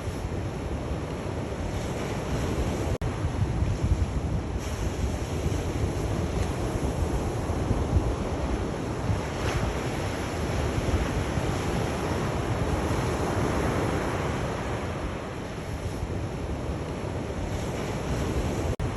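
Sea waves surging and washing on the shore in a continuous rush that swells and ebbs, with wind buffeting the microphone. The sound cuts out for a split second about three seconds in and again near the end.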